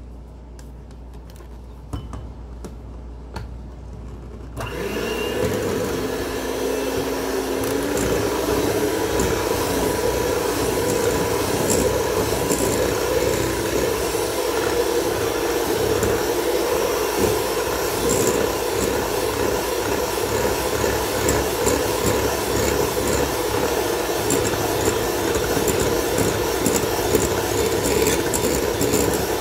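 A Kenwood electric hand mixer is switched on about four and a half seconds in, after a few light handling clicks. Its motor whirrs steadily as the beaters whisk eggs and sugar in a glass bowl, the pitch rising for a couple of seconds as it comes up to speed and then holding.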